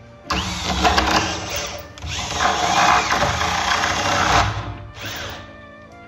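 Electric hand drill with a flat spade bit boring the latch hole into the edge of a wooden door, running in three bursts, the longest about two and a half seconds in the middle. Background music plays underneath.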